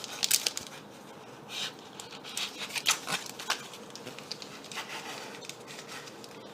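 A trading-card pack's wrapper crinkling and rustling as it is being torn open, in irregular short crackles.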